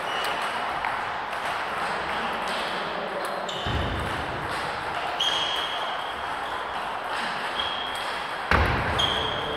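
Ping-pong balls clicking off tables and bats from several table tennis games at once, over a steady sports-hall din. There are a few short high squeaks, likely shoes on the wooden floor, and two dull thumps, about four seconds in and near the end.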